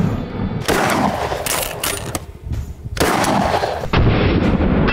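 DP-12 12-gauge shotgun firing 7.5 birdshot into watermelons at close range: several loud shots, each with a long tail.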